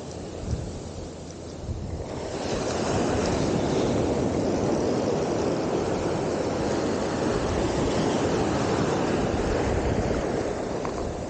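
Ocean surf breaking and washing up the beach, a steady rushing noise that grows louder about two seconds in.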